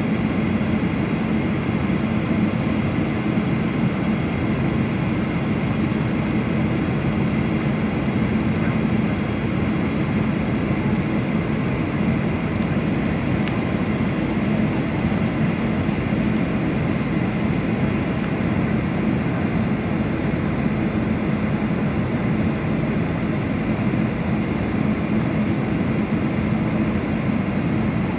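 Steady cabin noise of a Boeing 737 airliner on descent, the jet engines and rushing airflow heard from inside the cabin, with a faint steady whine above it.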